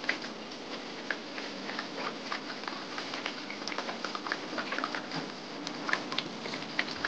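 Several dogs eating together from a basin of soupy cooked cassava: wet lapping, slurping and chewing, a steady run of many quick irregular clicks and smacks.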